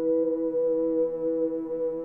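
Background music: a held chord of steady, sustained tones.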